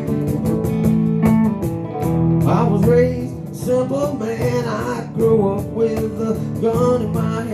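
Acoustic band playing an instrumental intro in a country style: acoustic guitars strumming chords, with a bending, wavering melody line coming in over them about two and a half seconds in.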